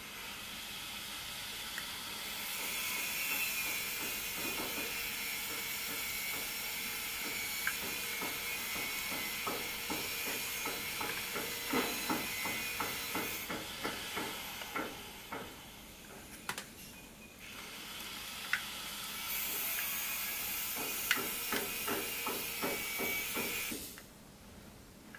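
A steady hiss that thins out for a few seconds in the middle, over light clicks and taps from the plastic housing of a small submersible pond pump (Yamano WP-103) being turned over in the hands. The clicks come in quick clusters in the second half.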